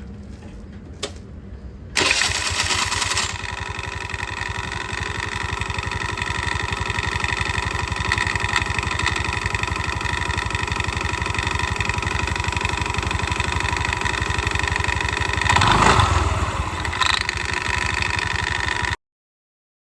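TVS Jupiter scooter engine starting about two seconds in, then running steadily at idle, with a brief louder spell near the end before the sound cuts off.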